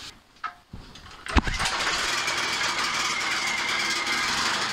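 Mil Germany ML8500W air-cooled portable generator starting up: after a short quiet, the engine catches with a sharp burst about a second and a half in, then runs steadily.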